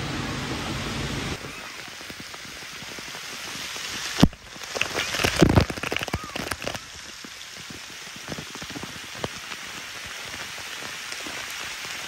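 Water spraying and splattering from splash-pad fountains, a steady hiss of falling water. A sharp knock comes about four seconds in, followed by a couple of seconds of louder, uneven splashing.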